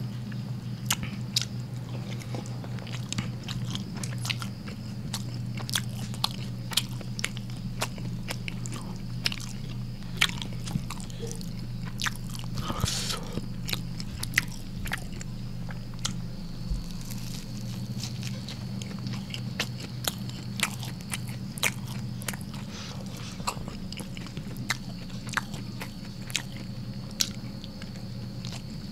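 A person chewing and biting rice with squid and rendang eaten by hand, close to the microphone: many small sharp mouth clicks throughout, over a steady low hum.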